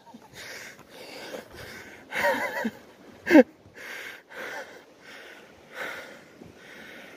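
A person breathing hard and rhythmically from the exertion of climbing a steep slope, panting about twice a second. Two short voiced grunts or calls come a little over two seconds in and about three and a half seconds in, the second being the loudest sound.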